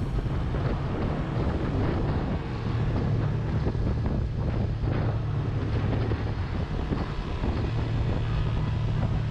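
Motorcycle engine running steadily at riding speed, with wind rushing over the microphone.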